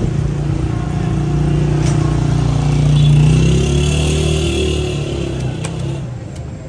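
A motor vehicle engine running close by, growing louder to a peak about three seconds in and fading away after about five seconds, as a vehicle passing on the street.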